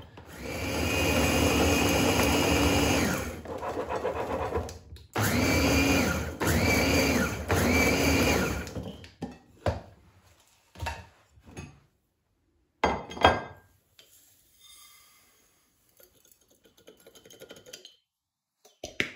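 Electric mini chopper crushing cornflakes into crumbs. Its motor runs for about three seconds, then in three short pulses, each rising and then falling in pitch. After that come knocks and clatter from the glass bowl and blade being handled.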